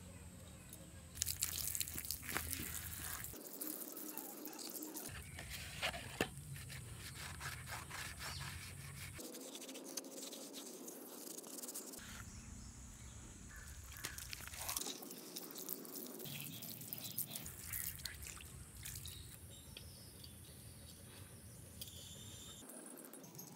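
Small hand-work sounds from a child's bicycle wheel being restored, in several short takes: clicks and knocks as the spoked steel rim and hub are handled, a brush scrubbing a soapy rubber tyre midway, and the rubber inner tube rustling as it is worked onto the rim near the end.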